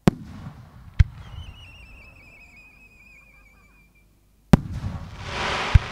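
Aerial firework shells bursting in four sharp bangs, two about a second apart near the start and two more in the last second and a half. Between them a whistle wavers and falls slightly in pitch for about three seconds, and a hiss builds just before the last bang.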